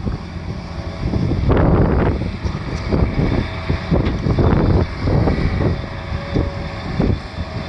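A Gleaner S77 combine running steadily in the field, heard under heavy wind buffeting on the microphone that comes in gusts about once a second.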